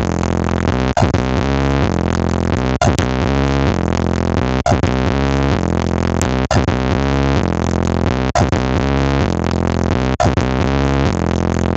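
Loud electronic dance music with heavy bass played through a large street-parade sound system, its synth chords breaking off briefly about every two seconds.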